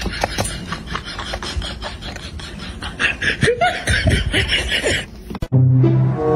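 Cat crunching dry kibble from a bowl, a rapid run of small crisp crunches. About three seconds in, giggling laughter joins it. Music cuts in abruptly near the end.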